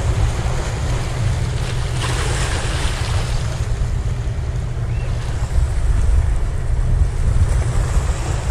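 Wind buffeting the microphone over sea waves washing against the boulders of a rock breakwater, with a louder rush of water about two seconds in.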